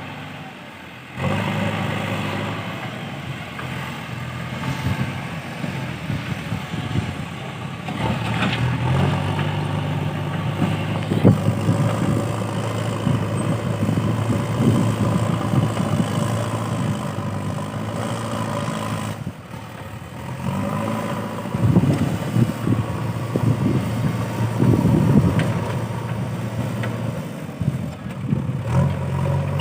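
JCB 3DX backhoe loader's diesel engine running under working load, its pitch rising and falling, with irregular clattering at times.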